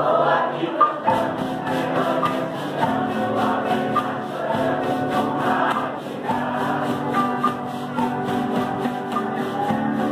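Mixed group of singers singing together to strummed acoustic guitars and violas caipira, with a cajón keeping a steady beat.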